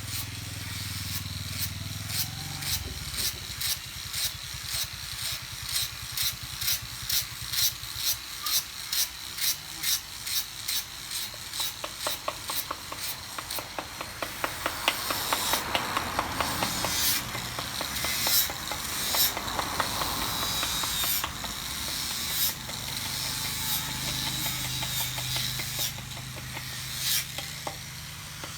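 A hand tool working wood in rhythmic scraping strokes, about two or three a second. About halfway through, the strokes turn faster and less regular. A low hum sounds at the start and again near the end.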